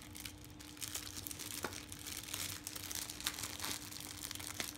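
Crinkling and rustling of the wrapping of a small package as a child's hands work it open, a continuous run of small crackles.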